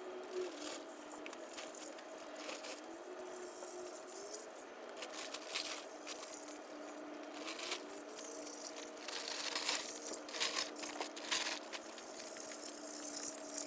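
Snow shovel scraping and boots crunching on a cleared, slushy path in short, irregular strokes, thickest in the second half. Under them runs a steady low hum that slides up in pitch a couple of times.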